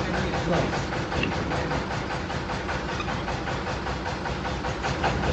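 A steady mechanical running noise like an engine idling, along with the scraping of a large hoof knife paring the horn of a donkey's hoof.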